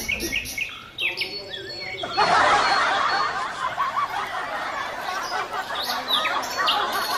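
Small birds chirping, short quick calls that become a busy, louder chatter of many birds from about two seconds in.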